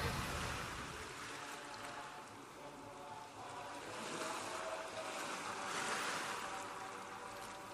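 Sea surf washing ashore, a steady rush that swells twice and eases off between.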